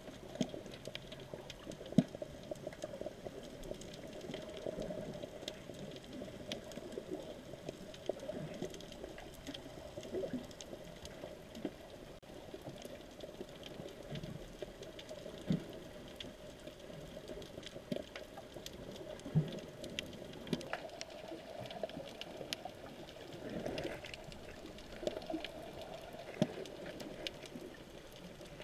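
Underwater ambience picked up by an action camera in a waterproof housing: steady muffled water noise with scattered sharp clicks and crackles and a few short low knocks.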